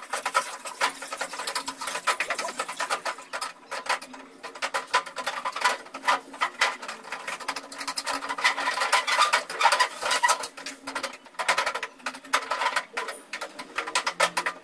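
Fingers kneading and squeezing a sticky paste of glue, arrowroot and powdered glass in a metal bowl: a dense run of fast, irregular squelching clicks.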